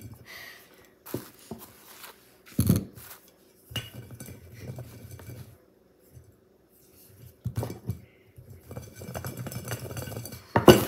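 Knocks and clinks of kitchen dishes and utensils on a countertop, with rubbing and handling noise as dough is stretched out by hand; a sharp knock about two and a half seconds in, and the loudest one near the end.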